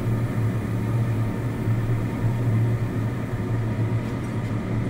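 Steady low kitchen hum with a faint hiss over it, with no clear sizzle of frying.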